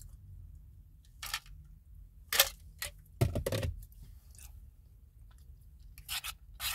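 Close-up mouth sounds of eating and drinking: a sip from a can, then chewing, with a handful of short wet smacks and crunches spread through. The loudest comes about two and a half seconds in, followed by a brief low gulping sound.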